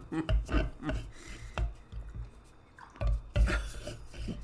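Thumps and knocks of drinks handled on a tabletop, with a short drip of liquid as a beer is served out for tasting.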